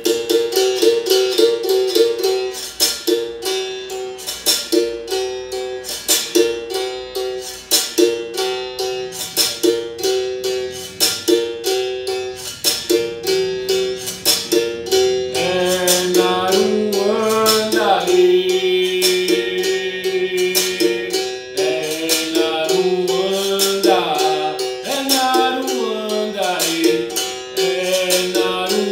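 Berimbau played in the Benguela rhythm: the steel string struck with a stick in a steady pattern that alternates between two pitches, with a crisp rattle on each stroke from the caxixi. About halfway through, a man's voice starts singing over the playing.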